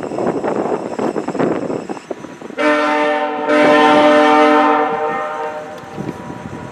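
A VIA Rail F40PH diesel locomotive's air horn sounds a chord for about two seconds, dipping briefly partway, then fades. Before it comes the steady noise of the moving train.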